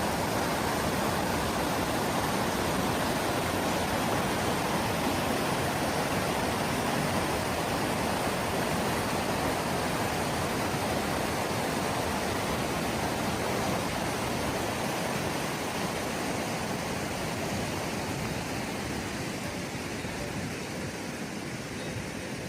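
Steady rushing of water with no pauses or distinct drops, easing slightly toward the end.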